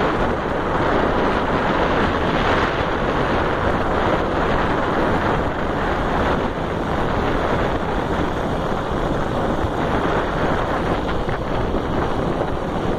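Steady wind rushing over the microphone of a moving motorcycle, with the ride's engine and road noise blended underneath.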